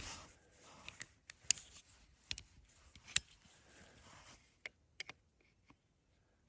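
Handling noise: a series of sharp clicks with soft rustling between them, the loudest clicks about a second and a half and three seconds in.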